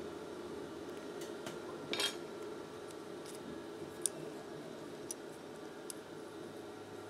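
Small metallic clicks and a short scraping clatter from a steel Singer 241-12 bobbin case being handled while its bobbin thread tension is adjusted: a tiny screwdriver on the tension-spring screw and the bobbin shifting in the case. The loudest scrape comes about two seconds in, then single light clicks about once a second, over a steady low hum.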